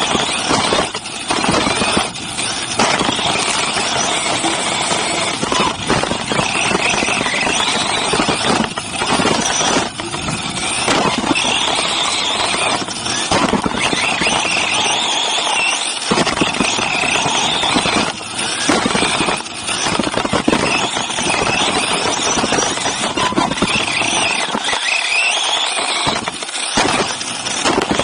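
Onboard sound of a Team Associated RC8B3.1 electric RC buggy racing off-road: a high motor and drivetrain whine under throttle over steady tyre and dirt noise, with frequent knocks from bumps and landings.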